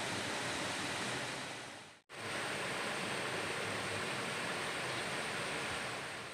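Steady rush of a flood-swollen river running fast over rapids and debris, with a brief silent gap about two seconds in.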